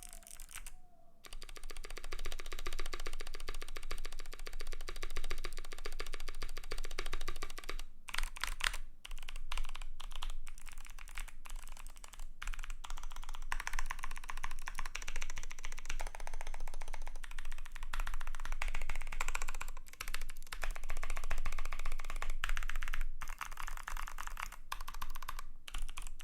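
Fast, steady typing on a custom KBD75 v3.1 mechanical keyboard with lubed Kailh Speed Bronze switches in a brass plate and ABS keycaps: a dense run of key clacks broken by a few brief pauses.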